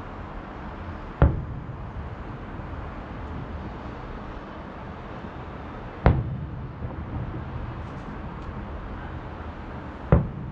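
Three distant aerial firework shells bursting, sharp booms about four to five seconds apart, each trailing off in a rolling echo, over a steady low background rumble.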